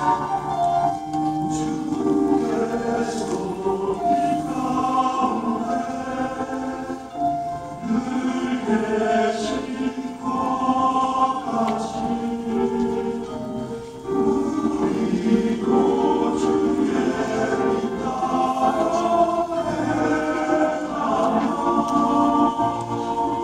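Men's choir singing in harmony, several voice parts holding and moving between chords.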